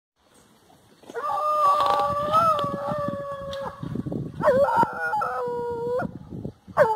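Dogs baying in long, drawn-out howls: one sustained howl about a second in, then overlapping howls from two dogs, and another starting near the end, over rustling from the grass and brush.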